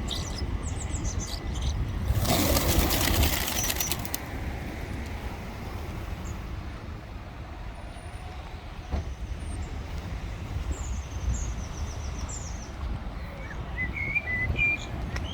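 Pigeon wings flapping in a loud flutter of about two seconds, a couple of seconds in, over a steady low rumble. Small birds chirp briefly near the start and again near the end.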